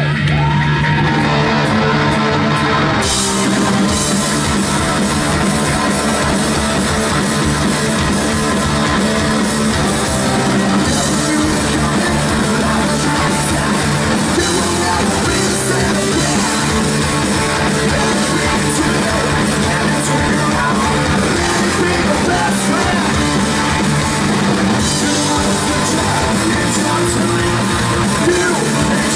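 Hard rock band playing live at full volume: distorted electric guitars, bass guitar and a pounding drum kit, steady throughout. The sound gets brighter about three seconds in.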